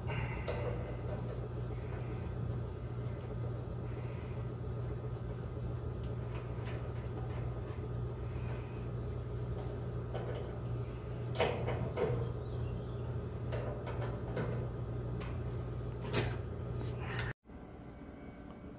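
A few sharp clicks and knocks of a screwdriver and hands on a gas dryer's burner valve solenoid coils, over a steady low hum that drops away abruptly near the end.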